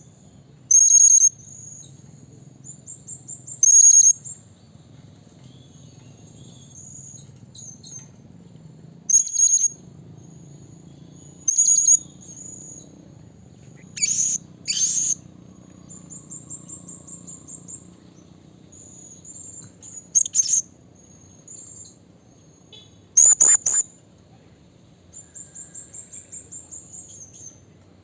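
Blue-crowned hanging parrot (serindit) calling: sharp, very high-pitched call notes. Loud single or paired calls come every few seconds, with runs of quicker, softer twittering notes between them.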